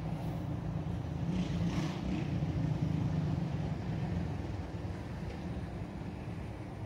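Steady low mechanical hum of background noise, even throughout with no single event standing out.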